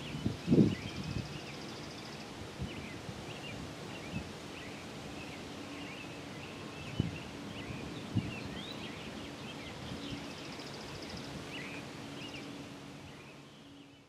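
Outdoor ambience of small birds chirping repeatedly, with a couple of short trills. There are a few low thumps of wind on the microphone, the strongest about half a second in, and the sound fades out near the end.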